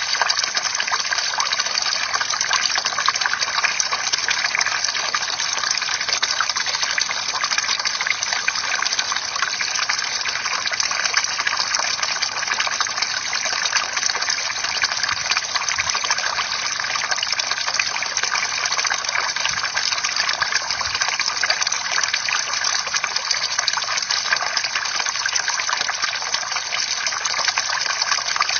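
Water from a bamboo fountain pouring and splashing steadily into a basin.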